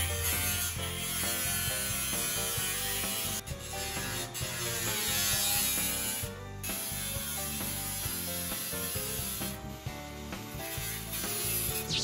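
A tool cutting a hole through the wall for the range hood's duct, a steady grinding cutting noise broken by a few short pauses.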